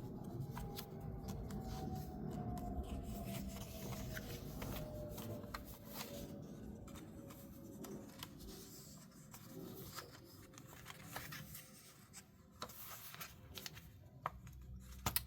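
Paper pages rustling and rubbing, with scattered light clicks, as punched printed sheets are handled and fitted onto a ring binder's rings.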